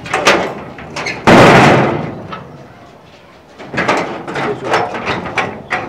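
Knocking and banging on a sheet-metal gate by hand: a loud bang about a second in, then a run of quick knocks from about three and a half seconds in.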